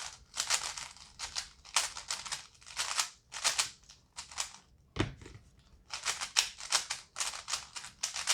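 GAN13 Maglev speedcube being turned by hand, its plastic layers clacking in quick repeated bursts, with a low thump about five seconds in.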